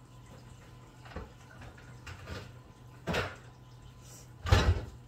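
A few short, soft bumps and rustles from hands working at a counter, the loudest a thud near the end, over a low steady hum.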